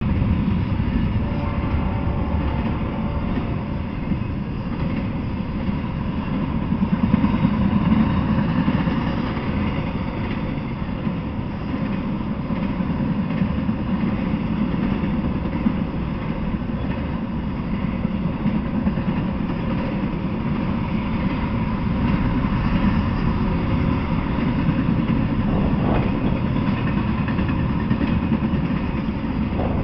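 Intermodal freight train rolling past, its steel wheels running on the rails in a steady, continuous rumble.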